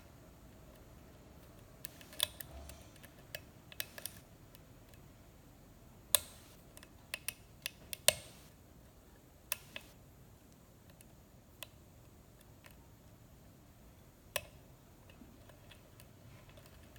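Irregular small clicks of a lock pick and tension tool working the pins of a six-pin pin-tumbler lock cylinder, about a dozen sharp ticks scattered among quiet stretches.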